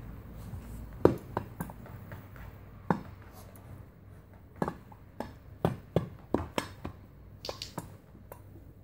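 Irregular sharp taps and knocks, about a dozen, bunched closely together a little past the middle, from a papillon dog pawing and nosing at the lid of a hollow storage ottoman.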